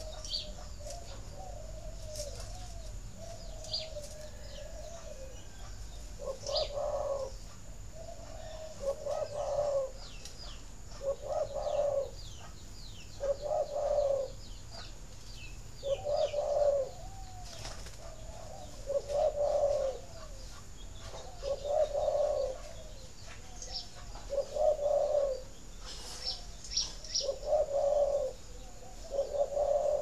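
Spotted doves cooing: wavering coos at first, then a repeated coo phrase about every two to three seconds from about six seconds in, with short high chirps over it. This is the cooing breeders play to prompt their doves to lay.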